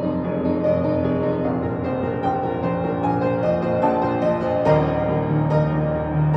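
Piano playing a pop-song arrangement: melody notes over held chords, with a deeper, fuller bass chord struck about three-quarters of the way through.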